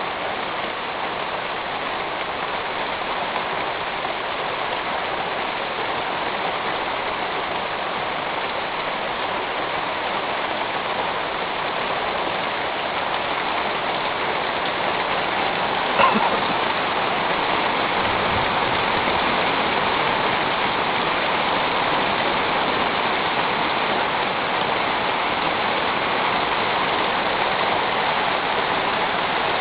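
Steady rain falling on a metal roof, growing slowly louder, with one sharp click about halfway through.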